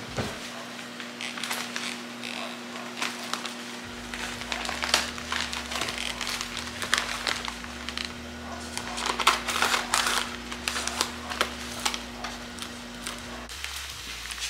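Scissors snipping through a bouquet's paper wrapping, with crinkling and rustling of the wrap as it is pulled open.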